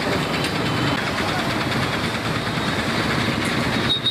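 Street traffic: motor vehicle engines running with a steady noise.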